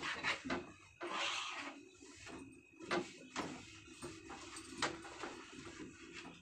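Cloth rubbing and wiping over a wooden kitchen shelf, with a few sharp knocks as the hand and items bump the shelf.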